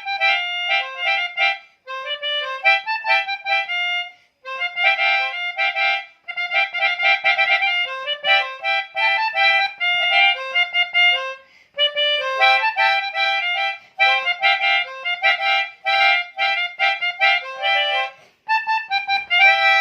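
Pianika (melodica) playing the telolet basuri bus-horn melody: quick runs of short reed notes in phrases, with brief pauses between them.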